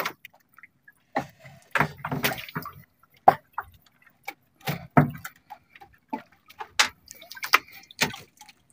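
Irregular wet splashes, drips and light knocks as a squid is hauled aboard on a hand line and taken off the jig over a plastic basket of squid.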